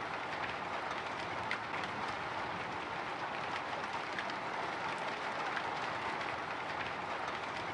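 Light drizzle pattering steadily on a window pane: an even hiss of rain with scattered small drop ticks.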